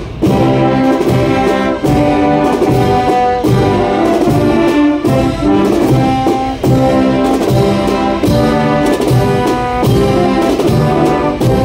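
Holy Week agrupación musical (brass and drum band) playing a processional march live at close range: sustained brass chords of trumpets, trombones and tubas over steady drum strokes.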